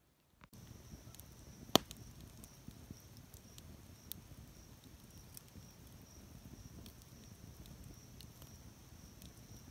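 Wood campfire crackling, with scattered sharp pops; one pop about two seconds in is much louder than the rest.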